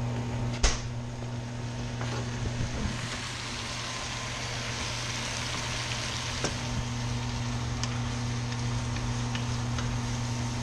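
Venison backstrap medallions sizzling in a frying pan with onions and pheasant's back mushrooms, stirred with a wooden spoon. There is a sharp click about a second in and a few lighter ones later, over a steady low hum.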